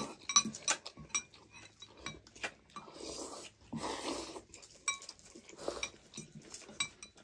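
People slurping thukpa noodles in hissing bursts, the loudest at the start and about 3 and 4 seconds in, with forks and spoons clicking against glass bowls.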